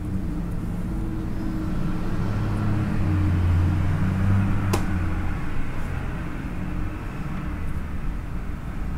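A steady low rumble, with one sharp click a little under five seconds in.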